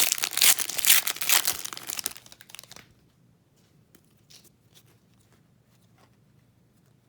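Trading card pack wrapper being torn open and crinkled for about the first three seconds, followed by a few faint light ticks of cards being handled.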